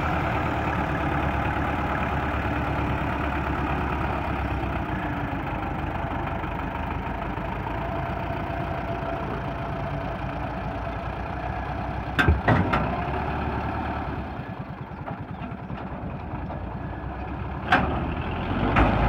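Belarus MTZ-50 tractor's four-cylinder diesel engine running steadily while moving a hitched wheat thresher over soft ground, easing off a little past the middle. A few sharp clanks come about twelve seconds in and again near the end.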